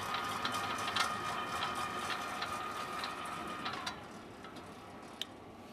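Hata Iron Works HT-AP15SS-U 15-station rotary tablet press running with a steady whine and irregular mechanical clicking. Nearly four seconds in, the whine slides down in pitch and fades as the rotation speed control is turned down. A single sharp click comes near the end.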